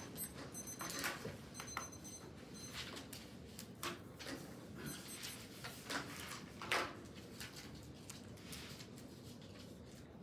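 Papers and sticky notes being handled on tables: a scatter of soft rustles and small knocks, the loudest about two-thirds of the way through.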